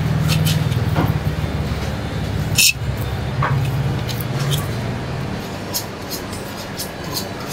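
A steady low mechanical hum that eases after about five seconds, with scattered light clicks and a short hiss about two and a half seconds in.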